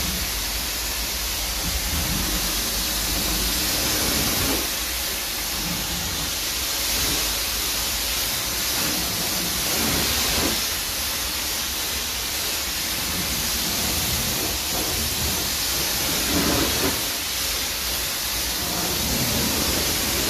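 High-pressure washer lance spraying a steady jet of water onto a car's bonnet and front wing, a continuous hiss as it rinses off the pre-wash foam.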